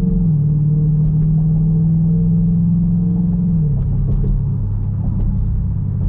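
Dodge Durango R/T's 5.7-litre HEMI V8 heard from inside the cabin while driving: a steady low engine drone with road noise, dropping slightly in pitch about a third of a second in and dropping again near four seconds in.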